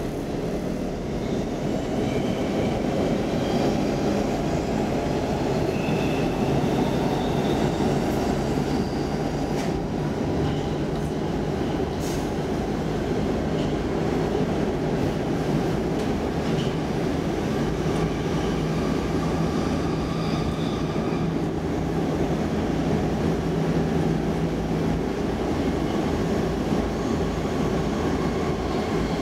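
Interior noise of a Stockholm Metro C14 subway car running at steady speed: a continuous rumble of wheels on rails, with faint brief wheel squeal now and then. A low steady hum runs under it and stops about 25 seconds in.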